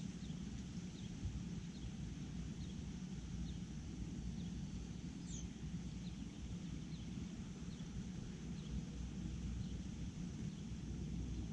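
A small bird repeating a short, high, downslurred chip note roughly every second, with one sharper, higher chirp about five seconds in, over a steady low rumble.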